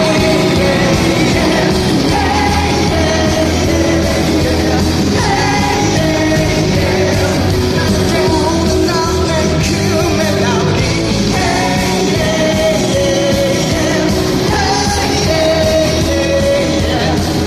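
Loud live rock-pop band performance with singing: steady bass and drums under melodic vocal lines.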